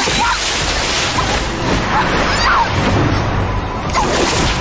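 A young woman crying out for help several times in short strained cries, over dramatic background music.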